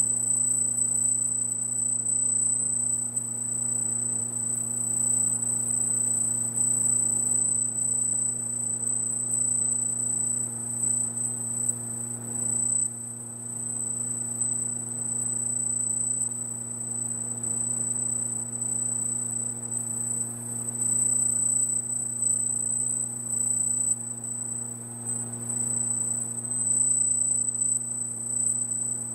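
Laser marking machine running while it engraves lettering into a metal panel: a steady high-pitched whine that wavers in strength, over a low electrical hum.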